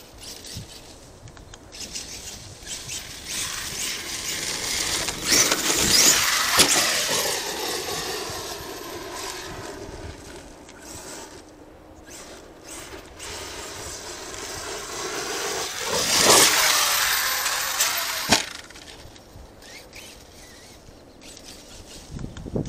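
Arrma Kraton 8S RC monster truck driving, its brushless electric motor whining. The pitch sinks and then climbs back over several seconds. Rushes of tyre-on-dirt noise come about six seconds in and again around sixteen seconds, with a sharp knock just after.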